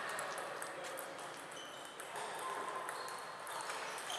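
Table tennis balls clicking off tables and paddles around a busy hall, with a few short ringing pings at different pitches.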